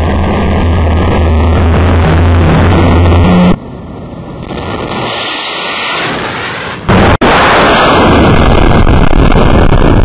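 Warship's missile launch: the booster of a ship-launched missile firing off a cruiser's deck launcher, a very loud rushing roar with heavy low rumble. It cuts abruptly to a quieter stretch about three and a half seconds in and comes back at full force about seven seconds in.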